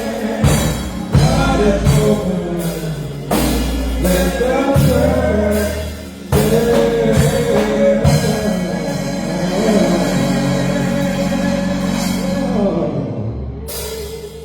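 Church band music: singing over drum kit and bass. It dies away about thirteen seconds in.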